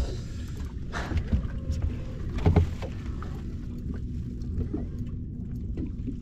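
Sounds of a bass boat sitting on the water: a steady low rumble of water against the hull with a faint hum, and a few thumps, the loudest about two and a half seconds in.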